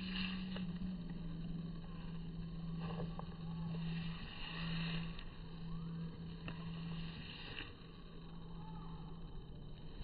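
A steady low hum over faint outdoor background noise, dipping in pitch slightly early on and breaking off briefly a few times.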